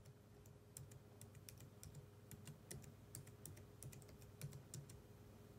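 Faint computer-keyboard typing: irregular sharp key clicks, a few each second, over a low steady hum.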